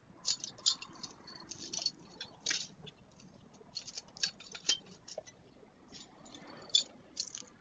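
Irregular light clicks, taps and rustles, several a second with no steady rhythm.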